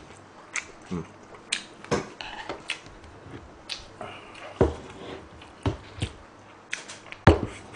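Close-miked eating sounds: wet chewing with irregular sharp lip smacks and clicks, a few of them louder knocks.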